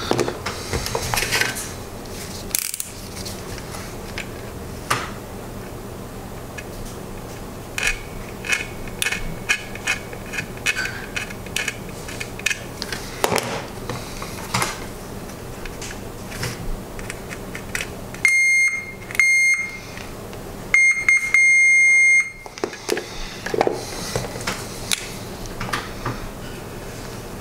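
Multimeter continuity tester beeping as its probe tips scrape and tap across circuit-board contacts: a broken, stuttering beep partway through, then three steady high beeps, the last about a second and a half long, marking a connection found between the contacts. Near the end, a marker scratches on the board.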